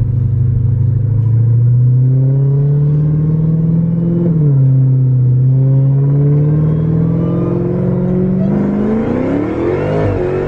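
Supercharged 6.2-litre HEMI V8 of a Dodge Charger Hellcat accelerating, heard from inside the car. The engine note climbs, drops at a gear change about four seconds in, then climbs again, rising steeply with the supercharger whine near the end.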